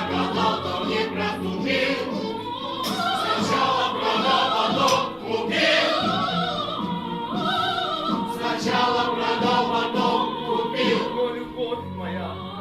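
Background music: operatic singing with a choir over orchestral accompaniment, with long, wavering held notes.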